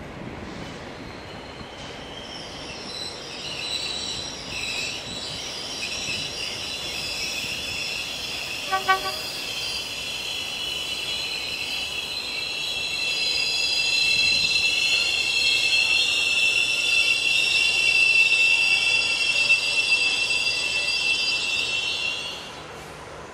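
Wheels of a slow train hauled by Class 5E1 electric locomotives squealing on curved track: several high, steady squeal tones that build up and are loudest in the last third. A short double toot of a horn about nine seconds in.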